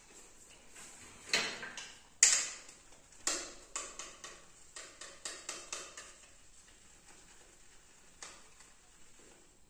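Sharp clicks and crackles of a small container and its wrapper being handled in the hands. Three loud clicks come in the first three seconds, then a quick run of smaller ones until about six seconds in, and one more near the end.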